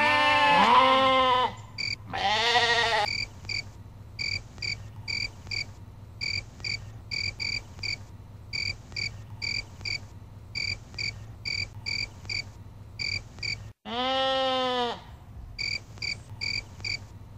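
Sheep bleating: a long wavering bleat at the start, another about two seconds in, and a third near the end. Between the bleats, short high chirps repeat steadily, two to three a second.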